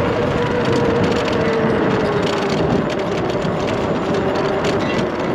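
Electric e-bike with a 3500 W brushless motor on 72 V running fast: a steady motor whine that drifts slightly lower, under heavy wind and tyre noise.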